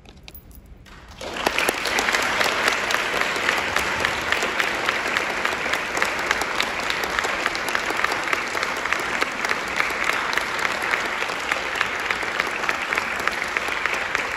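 Audience applauding: after a short quiet, dense clapping starts about a second in and carries on steadily.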